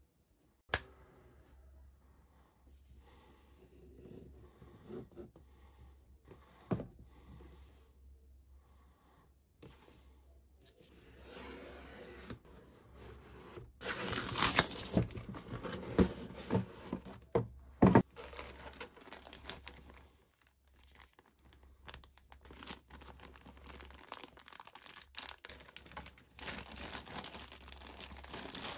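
Scale model kit being unboxed: plastic packaging and bags of parts crinkling and being torn open in bursts, with a few sharp knocks as the box and parts are handled. It gets louder for a few seconds past the middle and again near the end.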